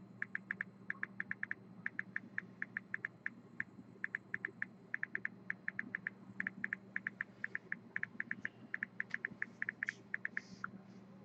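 Quick, light clicking in short runs of three or four at a time, many clicks a second, stopping shortly before the end, over a low steady hum.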